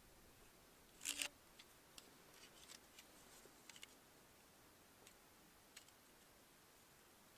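Faint handling of a digital level and pencil against the sawn end of a log: one short scrape about a second in, then a scatter of small clicks and ticks.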